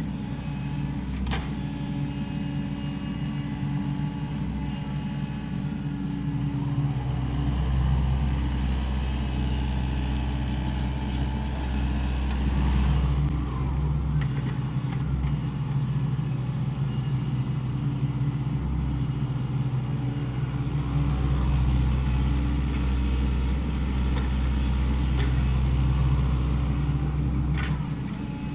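Sany SY75 excavator's diesel engine running steadily under hydraulic work, the low hum swelling twice as the machine takes load, with a few light clanks.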